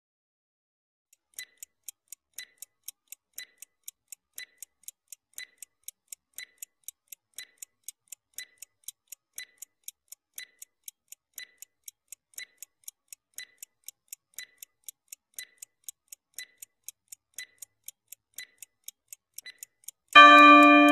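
Countdown-timer stopwatch sound effect: a clock ticking steadily, about two ticks a second, alternating stronger and weaker like a tick-tock. Near the end a loud ringing tone sounds, marking time up on the countdown.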